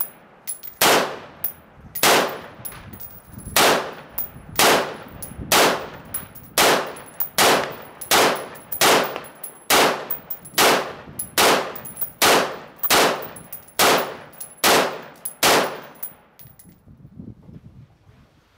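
DPMS Panther Arms AR-15 in .223 fired semi-automatically in a steady string of about eighteen shots, a little more than one a second, ending about sixteen seconds in.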